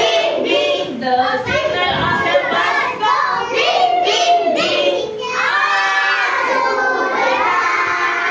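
A group of young children singing a rhyme together, loud and continuous, with a brief dip about five seconds in.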